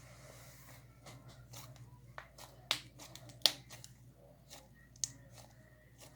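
Butter slime being kneaded and stretched by hand: a run of small sticky clicks and pops, with two louder snaps about midway.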